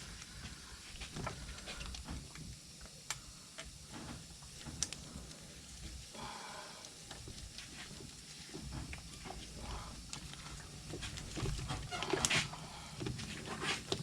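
Scattered clicks, rattles and scrapes of hand work as poly net cord is threaded through the mounts of an ATV's nerf bars. There is a brief squeak about six and a half seconds in, and a louder scrape just after twelve seconds.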